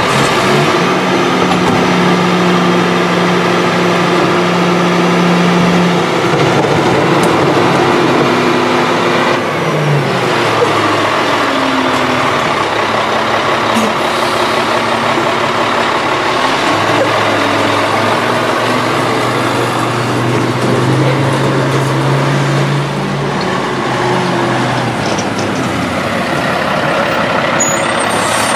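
Heavy diesel engine of a CCC garbage truck running, its pitch shifting up and down several times as the engine speed changes.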